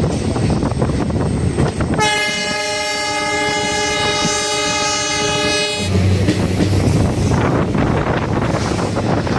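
A train running on the track, with a train horn sounding one steady, even note for about four seconds, starting about two seconds in.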